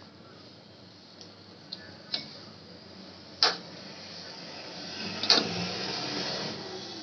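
Hand working flour and eggs into a crumbly dough in a stainless steel bowl: a soft rustling and squishing that grows louder in the second half, with a few sharp taps against the metal bowl, the loudest about three and a half seconds in and again a little past five seconds.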